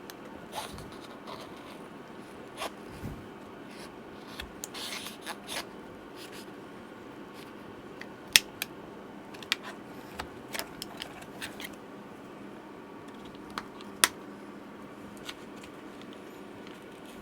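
Scattered sharp clicks, taps and brief scraping of small tools and parts being handled during a laptop battery replacement, with two louder clicks, about 8 and 14 seconds in, over a steady low hum.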